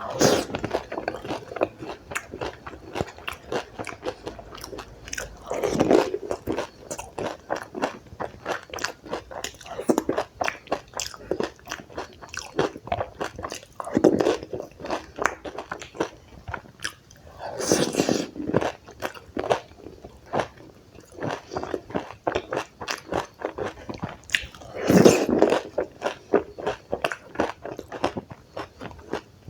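Close-miked eating of dahi puri: crisp puri shells crunch between the teeth, with steady rapid crunchy chewing and a louder bite every few seconds.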